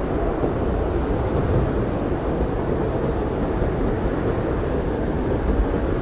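Blizzard wind blowing steadily, a deep even rumble with no gusts or breaks.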